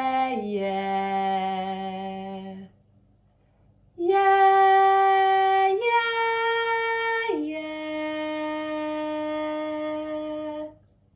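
A woman singing long held vowel notes without words. A note steps down to a lower one and is held, then after a breath-length pause come three held notes, stepping up and then down to a lower one.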